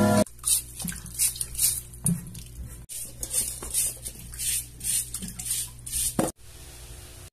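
Potatoes being handled by hand: a run of short scraping and rustling sounds, a few each second, as the potatoes are picked over and turned in the hand.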